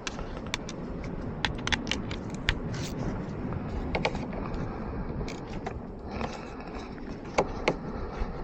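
Hand tools working on a loose battery cable terminal: irregular small metallic clicks and clinks with scraping.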